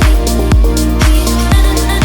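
Electronic dance background music with a steady four-on-the-floor kick drum, about two beats a second, under sustained synth notes.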